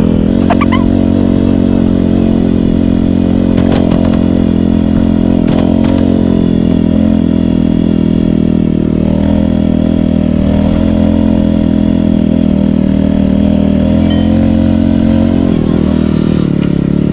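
Royal Enfield Meteor 350's single-cylinder engine running while riding, held at fairly steady revs.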